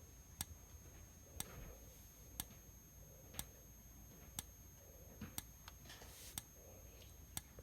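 Yellow fire alarm strobe clicking faintly once a second as it flashes. Its sounder stays silent because the speaker does not work.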